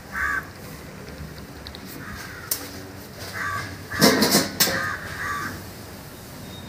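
Crows cawing: a handful of short, harsh calls, the loudest a little after four seconds in, with a sharp click midway.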